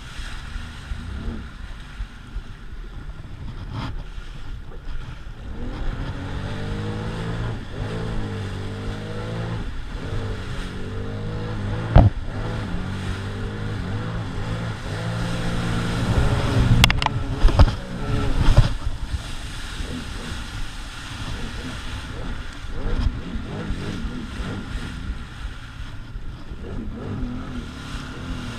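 Sea-Doo Spark Trixx personal watercraft running on the water, its engine pitch rising and falling as the throttle is worked. A few sharp knocks come about halfway through.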